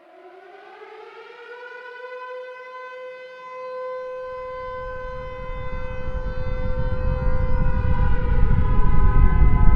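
A siren wail that rises at the start and then holds one steady pitch, while a low rumble builds from about four seconds in and keeps growing louder, leading into a nuclear explosion sound effect.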